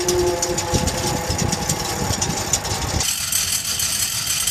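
Fan of a Honeywell TFE731-40 turbofan turning slowly with the engine shut down, its loosely fitted blades clattering against each other in their root slots with a crisp metallic tapping. That play is by design. About three seconds in it cuts to the same clatter from a Pratt & Whitney JT15D turbofan's fan, higher and thinner in tone.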